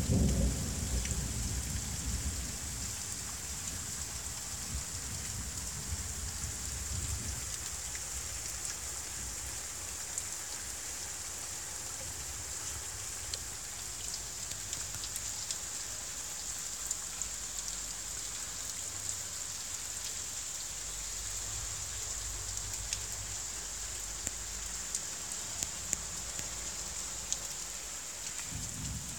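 Steady rain falling on a tiled roof and a puddled courtyard: an even hiss with scattered ticks of single drops. A low rumble of thunder dies away over the first few seconds, and another begins right at the end.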